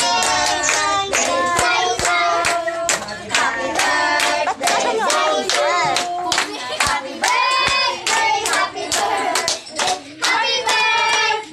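A group of children singing a birthday song together, clapping along in a steady beat.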